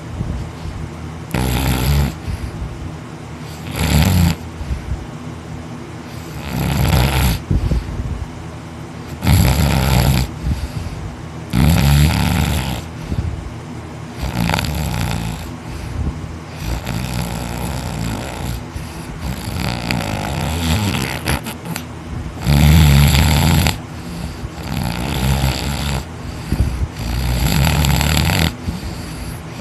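Heavy, loud snoring from a man sleeping on his back with his mouth wide open: one long snore on each breath, every two to three seconds.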